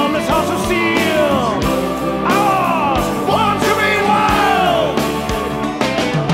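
Background rock music with a steady drum beat, its lead line sliding and bending in pitch.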